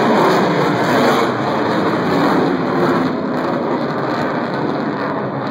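Lockheed Martin F-22 Raptor's twin Pratt & Whitney F119 turbofan engines, loud steady jet noise from the fighter flying its display overhead, easing a little about three seconds in.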